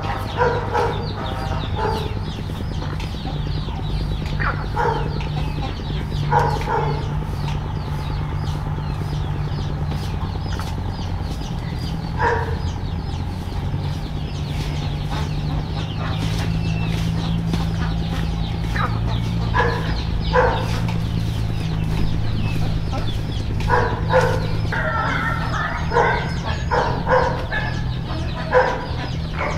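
Chickens clucking and calling in short bursts every few seconds, coming more often near the end, over a steady low hum.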